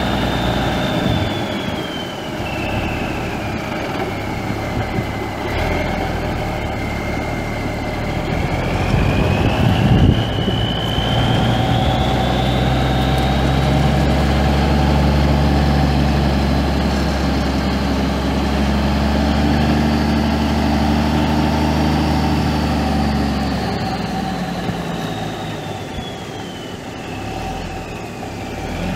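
Cummins NTC-350 six-cylinder turbo diesel in a 1982 Kenworth W900 semi truck, running. A high turbo whine falls, climbs and holds high through the middle as the engine note strengthens, then falls again near the end.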